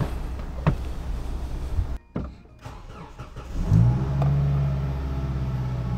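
Toyota HiAce van's engine starting about two-thirds of the way in: it catches, rises briefly, then settles into a steady idle that sounds healthy.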